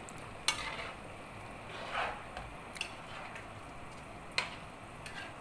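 A metal spoon stirring a wok of simmering chicken curry: a soft wet stirring sound about two seconds in, with sharp clinks of the spoon against the pan about half a second in and again near the end.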